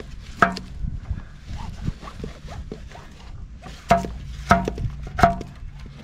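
Motor Sich walk-behind tractor running as it pulls a rotary plow through soil, with four sharp metallic clanks: one about half a second in and three close together in the second half.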